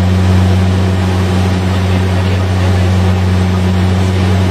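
Saab 340's twin General Electric CT7 turboprops and propellers droning steadily, heard from inside the cockpit on final approach. A deep, constant hum sits under an even rushing noise.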